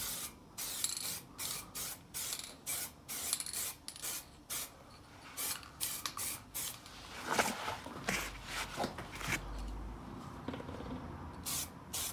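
Aerosol can of red caliper paint spraying in a long series of short hissing bursts, about two a second with a couple of brief pauses: light passes laying down a final coat.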